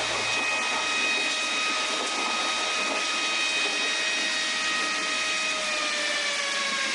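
Emergency-alert-style alarm tone: one steady droning pitch with strong overtones over heavy hiss, its pitch sagging gradually downward near the end.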